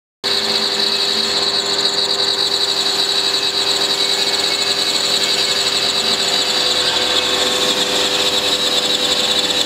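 SM-1530 CNC router's spindle milling a stone slab under water coolant: a steady high-pitched spindle whine with the cutter grinding through the stone. It starts abruptly just after the beginning.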